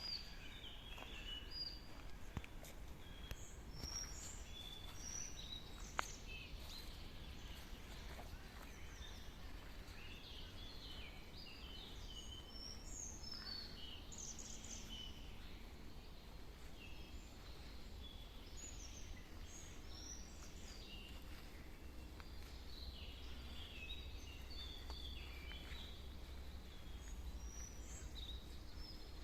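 Several birds singing and calling in a forest, with many short chirps and trills overlapping, over a faint low rumble. There is a sharp click about six seconds in.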